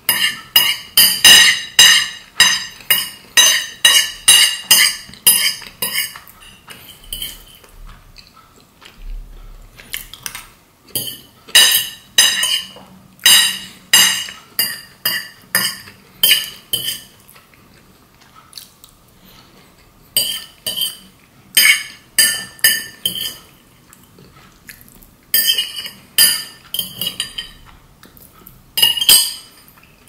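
Metal fork scraping and clinking against a ceramic plate as the last of the meat sauce is gathered up. The strokes come in runs of about two a second, with gaps of a few seconds between runs.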